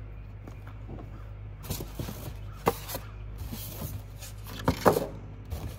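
Styrofoam packing inserts squeaking and scraping against each other and the cardboard box as they are pulled out, with a few sharp knocks, the loudest about five seconds in.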